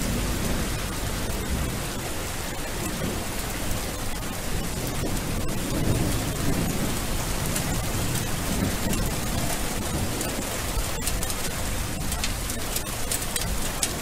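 Steady rain falling, a dense even hiss with a low rumble underneath.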